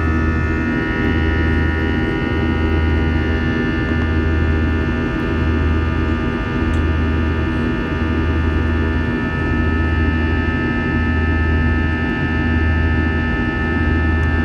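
Airbus A321 jet engines at climb power, heard from inside the cabin: a steady rush with several whining tones over it, and a low hum that swells and fades about once a second.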